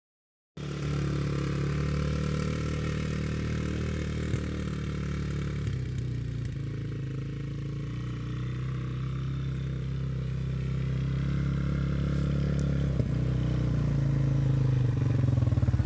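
Small sport ATV (four-wheeler) engine running at low speed as the quad is ridden across grass, growing louder near the end as it comes closer.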